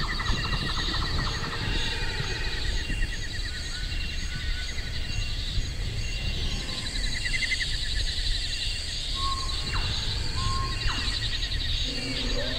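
Jungle-style nature ambience: insects trilling in steady repeating pulses at several pitches over a low rumble, with a few short chirps about nine to eleven seconds in. A lower pitched sound comes in near the end.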